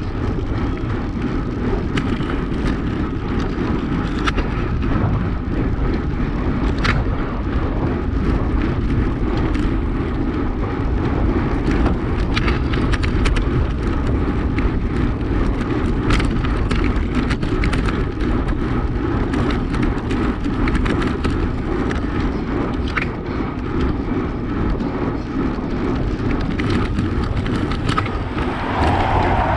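Road bike rolling over rough, broken tarmac, heard from a handlebar-mounted camera: a steady low rumble of tyres and wind with frequent sharp knocks and rattles as the bike jolts over the bumpy surface.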